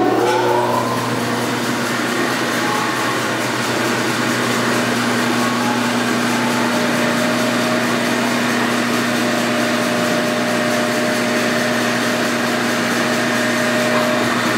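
SCMI SC 900 36-inch bandsaw just started and running with no load: its belt-driven 9 hp motor and blade finish spinning up with a rising whine in the first second, then settle into a steady, really quiet hum.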